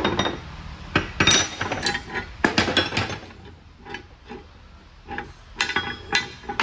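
Steel shift rods and parts of an Eaton Fuller transmission shift top clinking and knocking against the housing as the rods are worked out and set aside. A run of sharp metallic clinks and knocks, some ringing briefly, comes in a few bunches.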